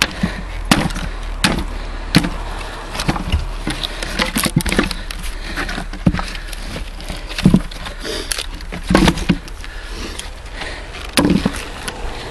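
Leveraxe splitting axe striking a firewood block again and again, about a dozen sharp whacks at irregular intervals. The wood cracks apart and split pieces knock against each other as they fall away.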